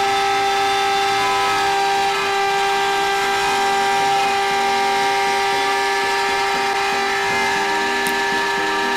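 Air-cooled 2.2 kW, 24,000 rpm spindle motor of a CNC lock-hole milling machine for aluminium doors, running at speed with a steady whine.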